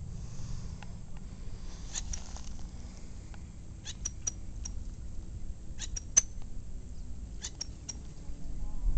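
Low wind rumble on the microphone, with short, high-pitched chips scattered through it in small clusters of two or three.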